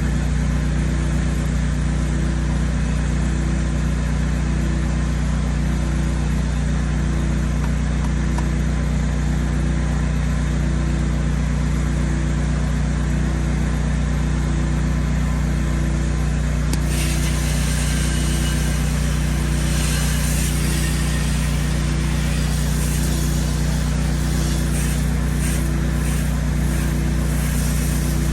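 A petrol-engine pressure washer runs steadily under load. About two-thirds of the way through, a loud hiss of high-pressure water spray joins it, flickering as the jet moves across the surface.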